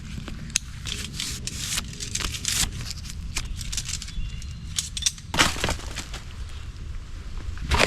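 Dry leaves and twigs crunching and cracking in irregular short crackles, with a louder crunch about five seconds in and another near the end, over a low steady rumble.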